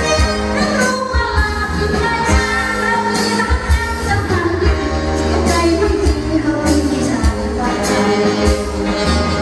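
A woman sings a Thai luk thung song live into a microphone, backed by a band with a steady drum beat.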